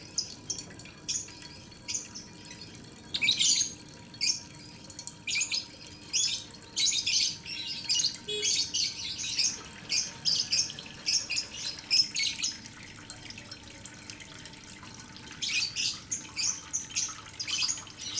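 Graphite pencil scratching on paper in quick short strokes, as in hatching and shading, with a pause of about two seconds near the end.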